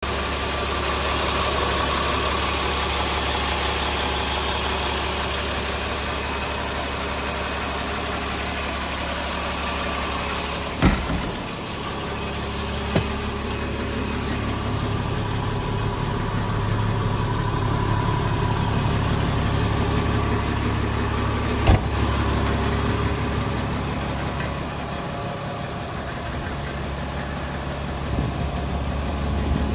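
Caterpillar C9 8.8-litre diesel engine idling steadily, with three short sharp clicks spread through it.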